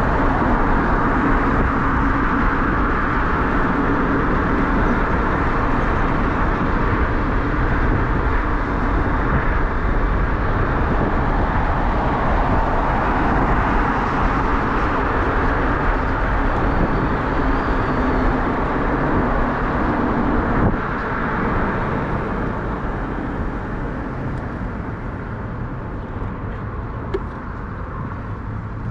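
Steady rushing of wind on an action camera's microphone, with tyre and traffic noise, while riding an e-bike through city streets. The rushing eases somewhat about two-thirds of the way through.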